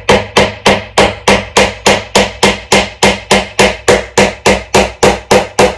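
Hammer driving a nail into a wooden birdhouse wall with a rapid, even run of blows, about four to five a second.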